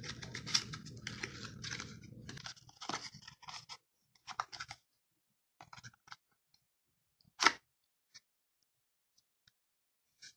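Thin cardboard being handled: a paper sleeve slides and scrapes over a folded card deck box, with crackling rustles in short bursts and one sharp snap about seven and a half seconds in. A low hum sits under the first couple of seconds.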